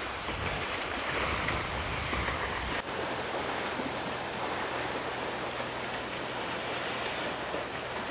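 Steady rushing noise of wind and water. About three seconds in it changes abruptly: a low rumble stops and a faint steady low hum takes its place.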